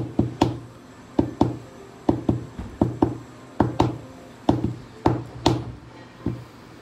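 A rigid plastic top loader holding a trading card knocked against the tabletop again and again in quick, uneven taps, to work the card down into the tight holder. The taps stop about six seconds in.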